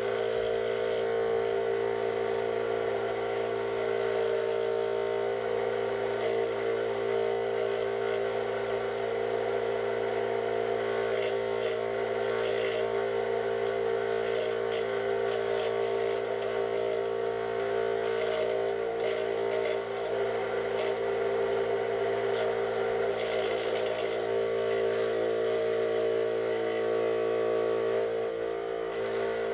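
Scroll saw running with a steady motor hum, its blade cutting 5 mm plywood as the workpiece is fed through by hand.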